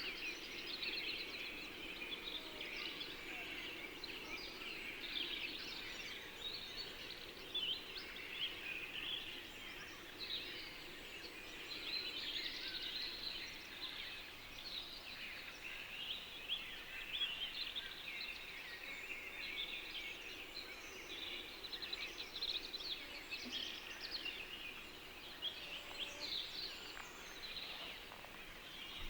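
Many small birds chirping and singing at once, a dense, unbroken chorus of short high calls over a faint steady low background.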